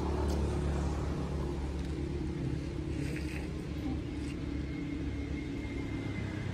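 A motor engine running steadily, a low rumble that holds even.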